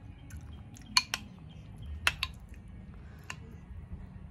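A spoon clinking and scraping against a ceramic bowl of rice porridge while eating: sharp clicks, two pairs about one and two seconds in, another later and one at the end, over a low steady rumble.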